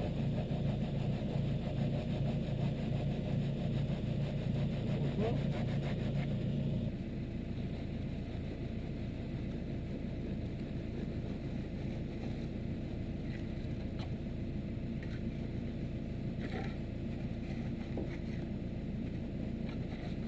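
A steady low motor drone that drops in level about seven seconds in, with a few faint taps later on.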